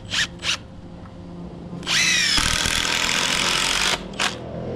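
Power drill running under load for about two seconds, its whine dropping in pitch as it bites and then holding steady. A few short, sharp bursts come just before it and one just after.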